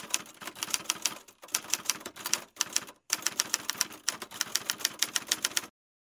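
Typewriter typing sound effect: rapid key clicks in quick runs, broken by two short pauses about one and a half and three seconds in, stopping shortly before the end.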